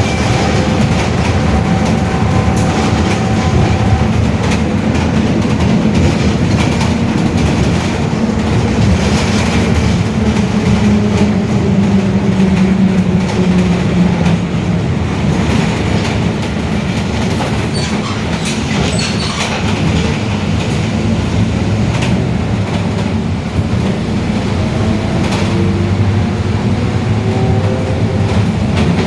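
Mercedes-Benz OF-1721 city bus under way, its rear differential droning very loudly: a whine that slides up and down in pitch with road speed over the low rumble and rattling of the running gear.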